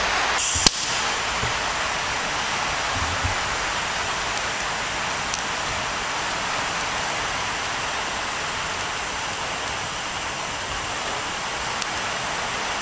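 TIG welding arc on a pipe joint from a Unimig Razor 200 AC/DC TIG welder, giving a steady, even hiss. A sharp click just under a second in.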